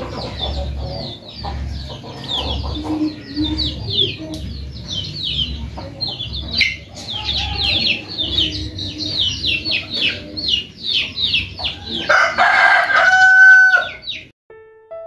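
A flock of free-range chickens clucking, with rapid high peeps repeating over and over. About twelve seconds in, a rooster gives one loud crow, the loudest sound, ending in a held note. A soft piano tune starts just before the end.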